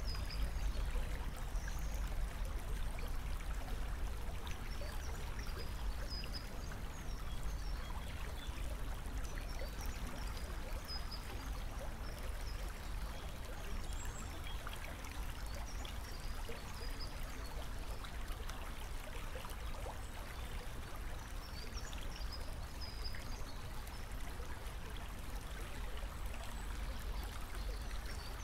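Steady trickle of flowing water over a low rumble, with faint short high chirps now and then.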